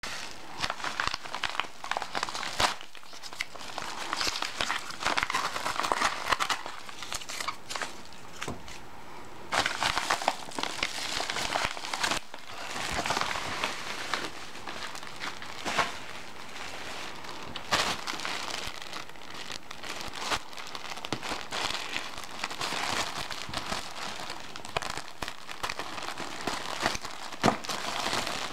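Packaging being handled and opened during a T-shirt unboxing: continuous crinkling and rustling with sharp crackles, louder in several spells.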